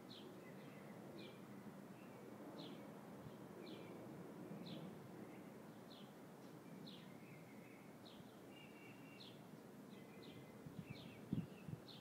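Small birds chirping: short chirps that drop in pitch, repeating a little more than once a second, faint over a low outdoor background. A few low knocks near the end.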